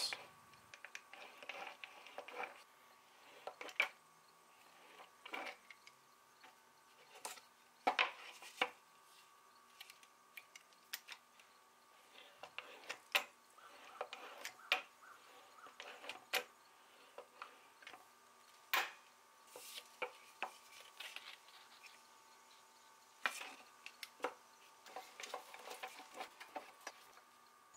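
A small hand roller run back and forth over peel-and-stick walnut veneer, pressing it onto the pressure-sensitive adhesive: faint rubbing with scattered light clicks and wooden knocks from the workbench and the panel being handled.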